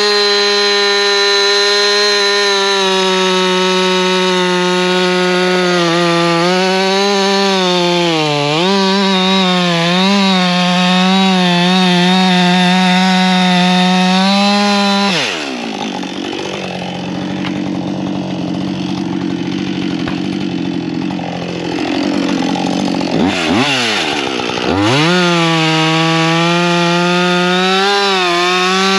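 Brand-new two-stroke chainsaw at full throttle ripping dry ash, its high steady pitch sagging and wavering under load. About halfway through it drops to idle, then revs back up and bites into the wood again near the end. The saw is being broken in on its unsharpened out-of-the-box chain.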